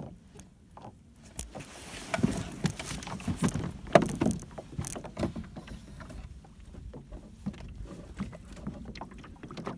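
Knocks, clatter and rustling in a small fishing boat as the angler scrambles to grab a rod that a fish has hit hard enough to nearly pull it away. The busiest stretch runs from about one and a half to five seconds in, with the loudest knock around four seconds, and lighter clicks follow.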